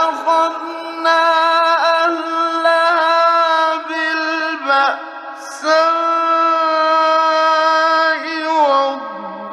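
A man reciting the Quran in the melodic mujawwad style, drawing out long, ornamented held notes with a short break about halfway through, in an old 1960s radio recording.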